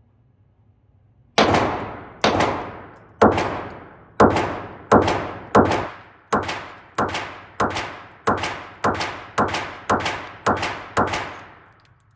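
A string of about fifteen pistol shots, fired one after another and coming a little faster toward the end, each shot followed by a short echoing tail.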